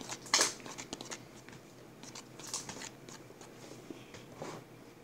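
Fluffy slime being stirred in a bowl with a utensil: irregular sticky clicks and smacks, the loudest about half a second in.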